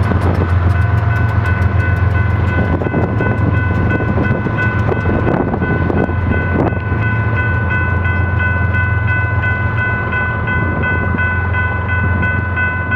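Freight train receding after its rear GE Evolution-series distributed-power locomotive has passed, with a steady low engine rumble and a few wheel clicks at the very start. Over it a grade-crossing bell rings, first as a steady tone and then in even pulses from about halfway through, stopping at the very end.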